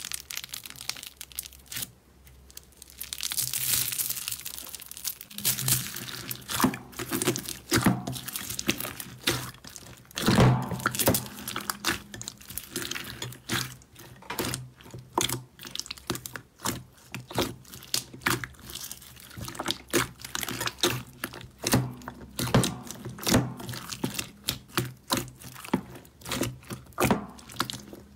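Slime being squeezed and pressed by hand, giving many quick, irregular wet pops, clicks and crackles.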